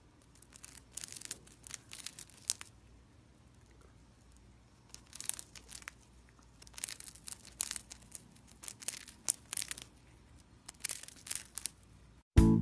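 A hamster nibbling and crunching a wafer biscuit close up: quick runs of crisp little crunches lasting about a second each, with short quiet pauses between. Music comes in just before the end.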